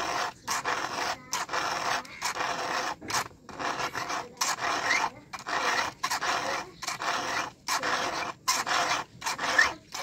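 Round file rasping back and forth through the cutting teeth of a chainsaw chain, hand-sharpening it in a steady run of strokes, about one and a half to two a second.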